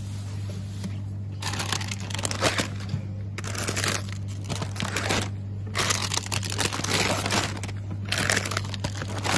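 Repeated stretches of crinkling, rustling noise, each a second or two long, over a steady low hum.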